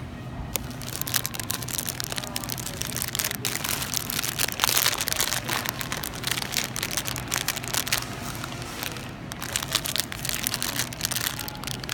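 Clear cellophane gift bag crinkling as it is picked up and handled: a dense run of crackles, loudest about five seconds in, with a brief lull near nine seconds.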